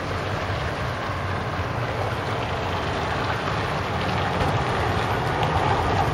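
A steady low engine hum mixed with wind rushing on the microphone, slowly getting louder.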